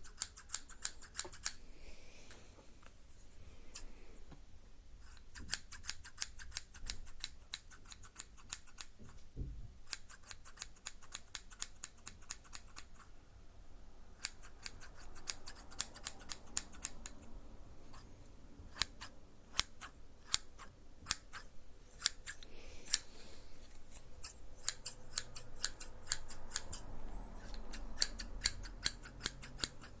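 Runs of rapid, sharp clicks or snips, several a second, broken by short pauses.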